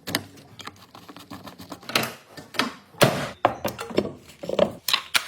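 A run of irregular knocks and clunks from tools and parts being handled, with louder thuds about two and three seconds in.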